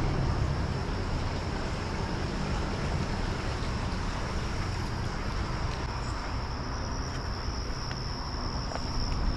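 A steady high-pitched insect buzz, growing stronger about six seconds in, over a constant rushing background noise.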